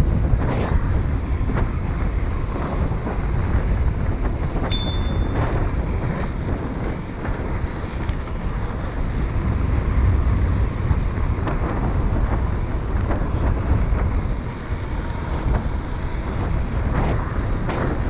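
Wind buffeting a GoPro Hero 6 Black's microphone as a mountain bike rolls along a paved trail: a steady low rumble with occasional light knocks. A brief high tone sounds about five seconds in.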